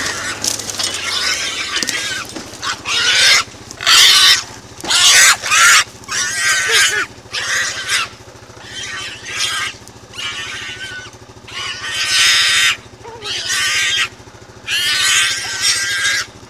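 Feral pig squealing over and over in harsh bursts of up to about a second each, the distress squeals of a pig caught and held by hunting dogs.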